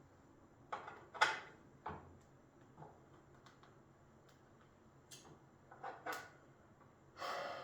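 A few scattered metal clicks and clunks from working the spring-loaded locking handle on a Profax WP-250 welding positioner, the loudest about a second in, with a short rustle near the end.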